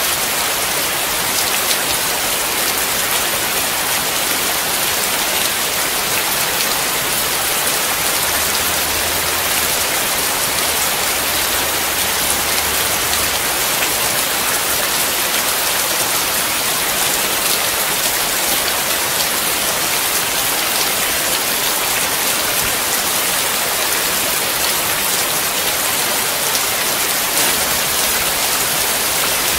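Steady rain, a dense even hiss of falling drops with fine individual splashes, holding at the same strength throughout.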